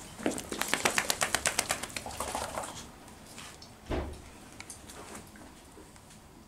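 Clicking and rattling from a leashed dog moving about: a quick, even run of clicks, about eight a second for a second and a half, then a single dull thump about four seconds in, followed by a few faint ticks.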